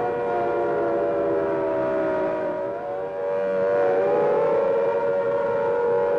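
Air-raid siren wailing: several tones sounding together, dipping in pitch and then rising again about midway.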